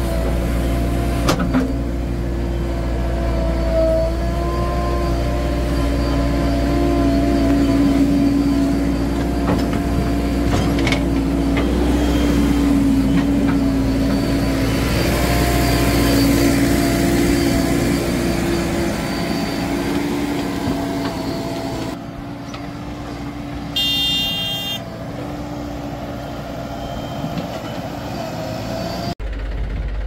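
Heavy diesel engines of a backhoe loader and tractors running steadily under working load, growing louder and then easing off. A few sharp knocks come early, and a short high-pitched tone sounds about three-quarters of the way through.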